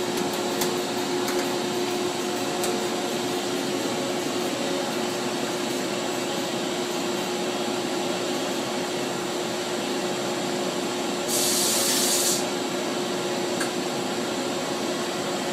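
Charmilles Roboform 40 die-sinking EDM machine humming steadily with a constant tone while its head's C-axis rotates to orient. About eleven seconds in, a sharp hiss lasts about a second and cuts off suddenly.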